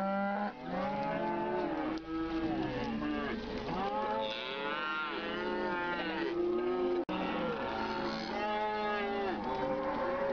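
Several cattle mooing, their calls overlapping one another, with a momentary cut-out in the sound about seven seconds in.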